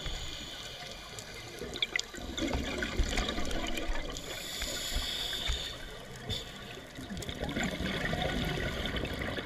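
Underwater sound of a scuba diver breathing through a regulator: exhaled bubbles gurgle about two and a half seconds in and again near the end, with a fainter hiss of an inhalation between them. Scattered faint clicks run through it.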